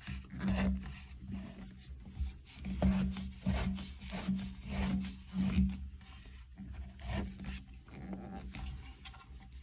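Irregular scraping and rubbing with soft knocks as a shower trim plate and handle are worked back into place over the valve, with a low hum that comes and goes.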